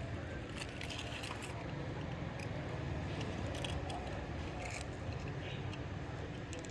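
Scattered light clicks and scrapes of small diecast toy vehicles and pebbles being moved in sand, over a steady low background rumble.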